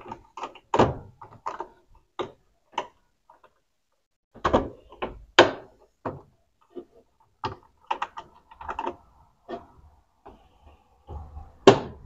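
Plastic dispenser drawer and cover panel of an Electrolux LT10B top-loading washer being handled and snapped into place: a string of sharp plastic clicks and knocks, the loudest about a second in, midway and near the end.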